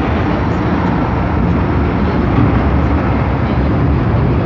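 Cabin running noise of an MTR M-Train (Metro-Cammell electric multiple unit): a steady, loud rumble of wheels on rail and traction equipment as the train runs into a station.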